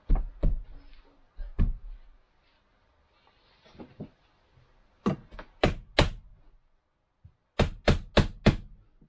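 Hammer knocking nails into a wooden window-frame trim piece: a few scattered knocks, then a run of three about five seconds in and four quick strikes near the end.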